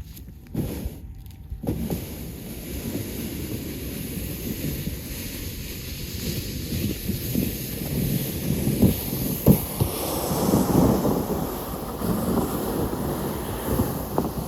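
Wind buffeting the microphone: a steady rush with irregular gusts and thumps that grow stronger in the second half.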